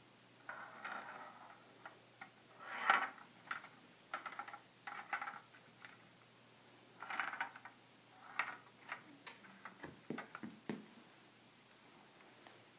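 Small metal ball rolling and clicking through the plastic tracks of a Perplexus Epic maze sphere as the sphere is turned by hand: irregular clicks and short rattles, the loudest about three seconds in, with a few duller knocks near the end.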